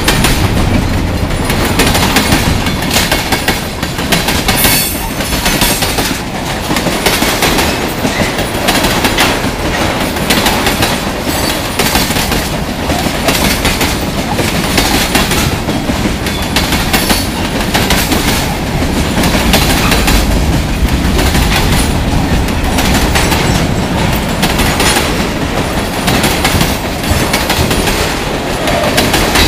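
Freight train passing close at speed: a steady rolling rumble with the wheels clacking repeatedly over rail joints.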